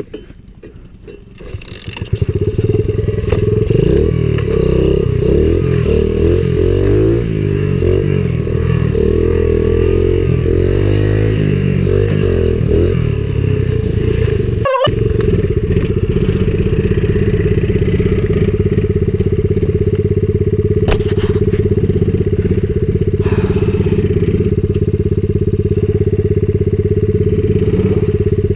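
Small four-stroke single-cylinder engine of a Coolster 70cc pit bike comes up loudly about two seconds in, then revs up and down as the bike rides off along a trail. From about halfway it runs at a steady speed, with a brief cut-out in the sound about halfway.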